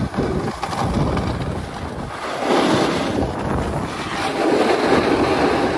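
Wind buffeting the microphone over the rush and scrape of a snowboard sliding on packed snow. It swells louder about two and a half seconds in, and again near the end.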